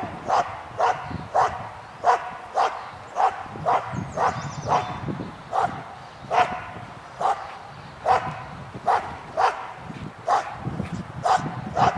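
A dog barking over and over, about two short barks a second in a steady rhythm, as it runs an agility course.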